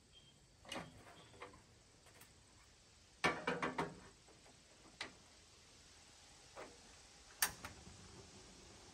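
Metal clatter from a red portable gas grill and a stainless steel pot: a burst of rattling knocks about three seconds in as the lid is opened and the pot is set on the grate. Scattered sharp clicks come before and after, the loudest near the end as the front of the grill is handled.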